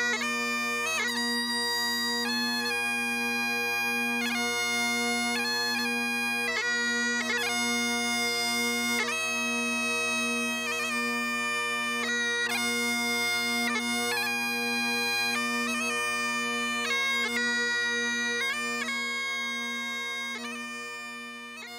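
Great Highland bagpipes playing a tune: the chanter's high-pitched melody moves from note to note over the steady, unbroken drones. The playing fades down a little near the end.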